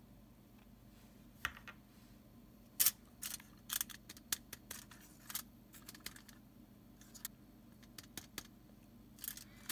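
Scattered short, sharp clicks and crinkles from a plastic dropper bottle of flux being handled over crumpled aluminium foil, the loudest about three seconds in.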